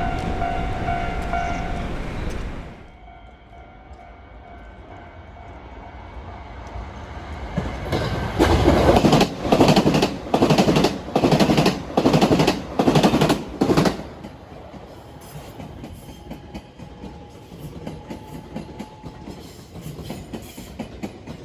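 A JR Hanwa Line electric train passing a level crossing. Its wheels clatter over the rail joints in about eight loud, evenly spaced beats over some six seconds in the middle. At the start, train noise with the crossing's steady ringing warning bell dies away about two and a half seconds in.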